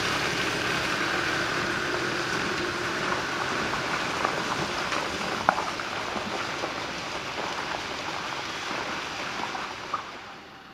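Land Rover Defender pickup pulling away down a muddy track: a steady rushing noise of the vehicle and its tyres that slowly fades as it draws off, with a few faint clicks. The sound drops away suddenly near the end.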